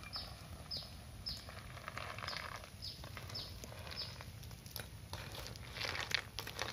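A bird calling: a run of short, high chirps, each falling in pitch, about two a second, over a steady low rumble. Some rustling and clicks come near the end.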